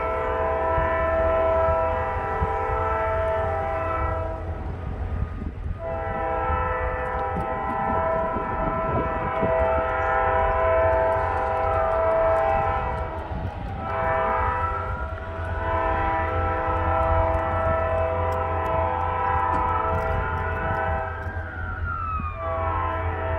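Diesel locomotive's multi-chime air horn sounding long blasts, broken by short gaps at about four, thirteen and twenty-two seconds, as the train approaches a grade crossing. A fainter whine glides up and down in the middle and near the end, over a steady low rumble.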